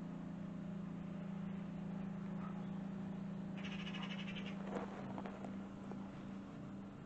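Steady low hum of outdoor background noise. About three and a half seconds in, a small animal gives a short, rapid, high trill lasting about a second, followed by a few faint clicks.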